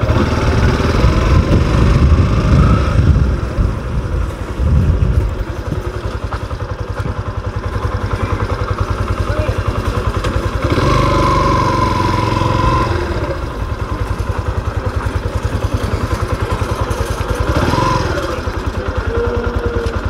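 Motorcycle engine running at low speed with a steady low pulsing beat. It is a little stronger in the first few seconds, then settles.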